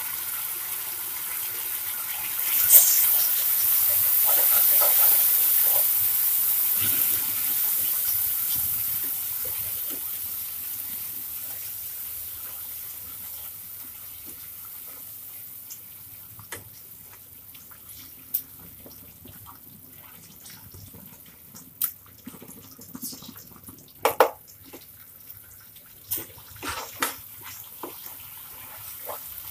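Tomato-onion masala paste sizzling in hot oil in a non-stick pan as it is stirred, cooking toward the stage where the oil separates. The hiss swells a few seconds in and then slowly dies away, and in the second half a spatula taps and scrapes against the pan.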